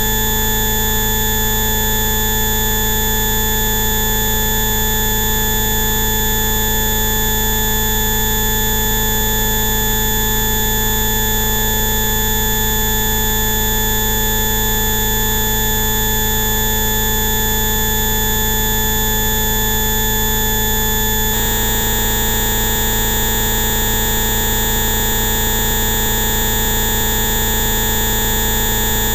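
Electronically generated Rife/bioresonance frequency tones: many steady pitches sounding together as a dense buzzing drone, with no melody or rhythm. About 21 seconds in, the mix switches abruptly to a new set of tones, the next frequency step of the sequence.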